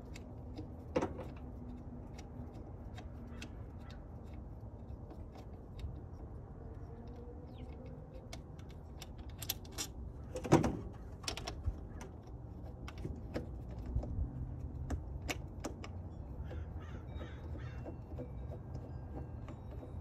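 Light clicks and knocks of hands and tools working on the intake coupler at the M62 supercharger's inlet, with one louder knock about halfway through.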